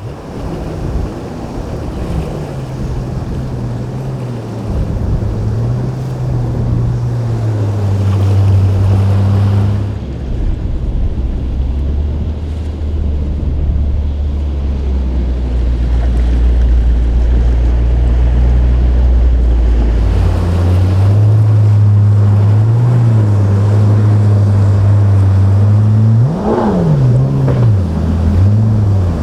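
Motorboat engines running steadily under wind and water noise, the engine pitch shifting between clips. Near the end, one engine revs up sharply and drops back down.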